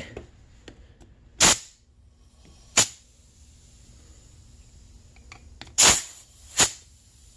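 Four short hissing blasts of compressed air from an air blow gun into a leak-down tester's fill valve, pressurizing the sealed crankcase of a two-stroke snowmobile engine. The crankcase is leaking past a worn crank seal and won't hold its 8 PSI.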